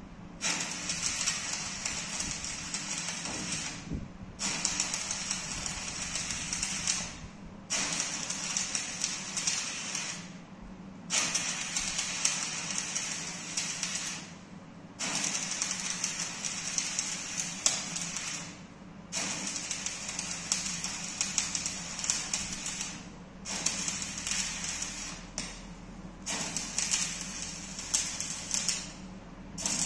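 Electric arc welding on a dump truck's steel door: the arc crackles in short runs of about two to four seconds, stopping and restarting about eight times, over a steady low hum.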